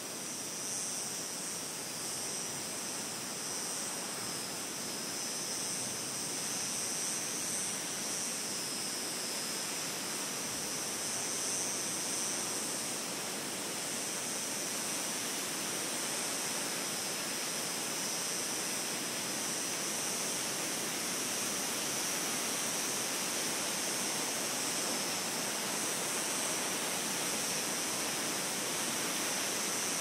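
Steady rushing wind from a nature-sound ambience track, an even noise with a steady high hiss above it, growing slightly louder over the first several seconds.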